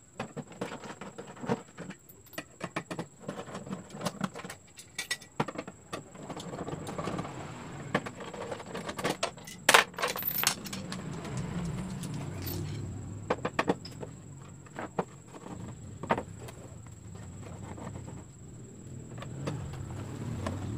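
A long screwdriver backing screws out of a 32-inch LED TV's plastic back cover: scattered small metallic clicks and scrapes, with one sharper click a little before halfway.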